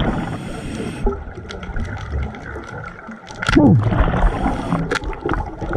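Scuba diver breathing through a regulator underwater: hissing inhalations and bubbling exhalations. About three and a half seconds in, a sharp knock as the speargun is fired into a halibut on the sand.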